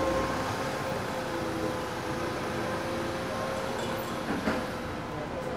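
Street traffic noise with a steady mechanical hum from a nearby vehicle, and a short knock about four and a half seconds in.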